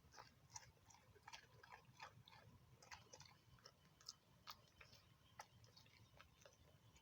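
Dog chewing food, faint irregular crunches and clicks of its teeth and mouth, several a second.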